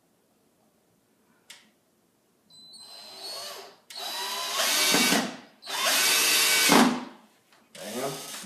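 Cordless power drill running in several short goes, most likely driving screws to mount a blind bracket. It starts softly about two and a half seconds in, then runs loud three times for about a second each, after a single click earlier on.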